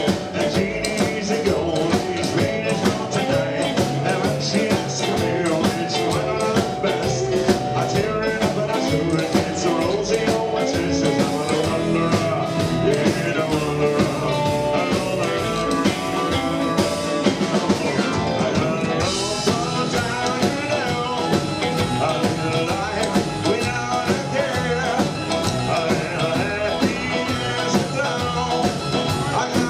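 Live rock and roll band playing: electric guitar, keyboard and drums with a steady beat. The highest part of the sound drops away for a couple of seconds a little past the halfway point, then returns.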